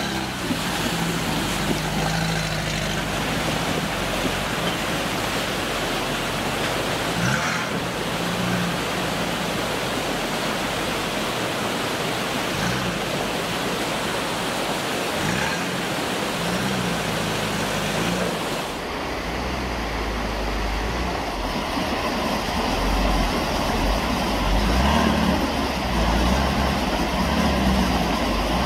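Toyota 4x4 pickup engines running under load as the trucks drive through a rushing rocky creek, the water noise and spray steady over the engine note. About two-thirds of the way through the sound cuts to a deeper, heavier engine rumble with the water still rushing.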